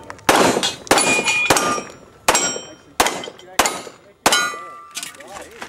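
A string of seven semi-automatic pistol shots, about two-thirds of a second apart; the last comes a little over four seconds in. Several shots are followed by a brief ringing tone.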